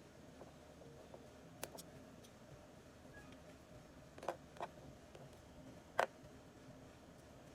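Four light clicks and taps of small hard objects being handled, the last one the loudest, over a faint steady room background.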